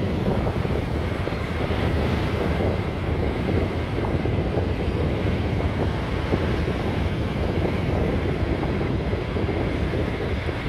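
Steady rumble of a 4x4 driving on beach sand, with wind buffeting the microphone.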